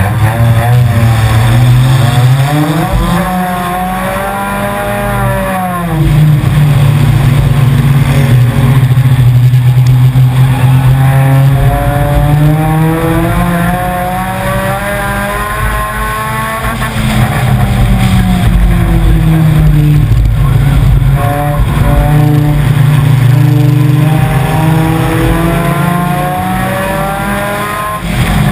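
Four-cylinder enduro race car's engine heard from inside the car under racing load, its pitch climbing and falling again and again as it accelerates and lifts. There is a sharp drop about five seconds in, then long pulls between shorter dips.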